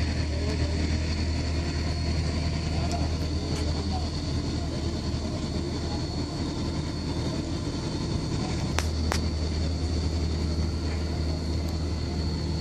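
Steady drone of diesel-driven site machinery (a CompAir C30 portable air compressor and the IHC hydraulic hammer's power pack) running, a low hum with a constant high whine over it. Two sharp clicks come about nine seconds in.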